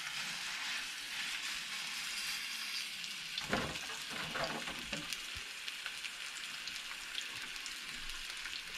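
Whole pompano just laid in hot oil in a nonstick frying pan on high heat, frying with a steady sizzle. A few light knocks come near the middle.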